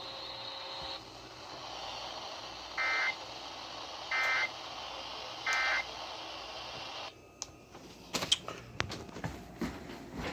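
Three short bursts of Emergency Alert System digital data tones, each under half a second and about a second and a half apart: the SAME end-of-message signal closing a broadcast severe thunderstorm warning. Faint receiver hiss runs under them, and a run of clicks and crackles comes near the end.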